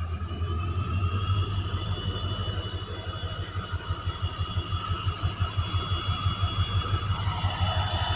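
Indian Railways diesel locomotive running past close by, its engine giving a deep, pulsing hum under a high turbocharger whine that rises slightly.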